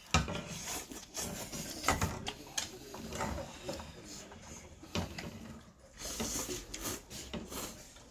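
Metal ladle and tongs knocking and scraping against a metal ramen pot and a bowl as noodles are served: scattered clicks and clinks.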